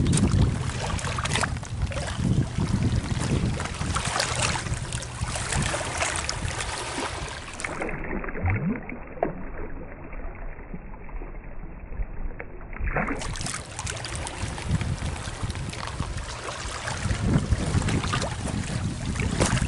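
Wind buffeting the microphone outdoors, with the crunch and scrape of footsteps on wet stones and shingle; for a few seconds in the middle the sound turns dull and muffled.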